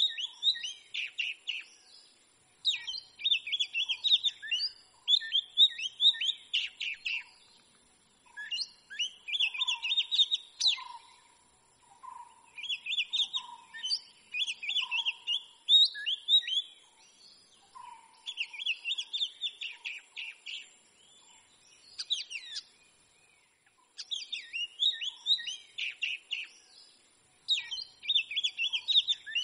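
Oriental magpie-robin singing: bursts of rapid, varied whistles and chirps, each about two seconds long, repeated after short pauses.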